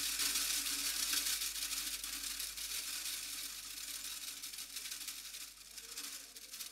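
A cymbal ringing out after the song's final drum hit: a hissing wash that slowly fades away to almost nothing, with a faint low hum of lingering instruments beneath it.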